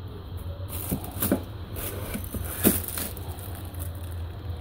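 Comic books in plastic sleeves being handled and slid along a shelf: a few soft rustles and knocks, the loudest nearly three seconds in, over a steady low hum.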